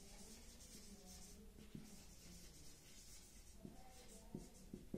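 Faint scratching of a marker writing on a whiteboard, with a few light ticks as strokes start and end.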